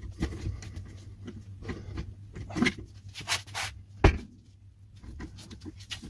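Metal clicking and scraping as a cylinder-twisting tool is rocked back and forth against a padlock's lock cylinder, which is holding firm, with one sharp metallic knock about four seconds in.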